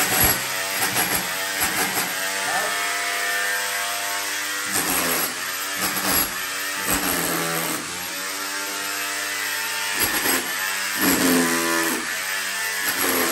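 Corded electric rotary hammer in chisel mode chipping old plaster off a brick wall: a continuous hammering machine rattle with a few brief breaks.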